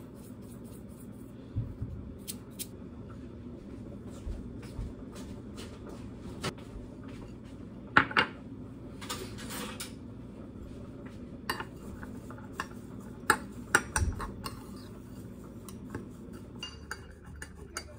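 A metal spoon clinking and scraping in a ceramic bowl as breadcrumbs are stirred with butter, among scattered clicks and knocks of things handled on the counter. There is a scratchy stretch about eight to ten seconds in.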